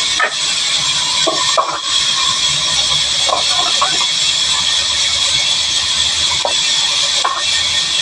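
Large sawmill band saw running with a steady high hiss and whine as timber is fed along its carriage. There are a few short knocks and clatters scattered through it.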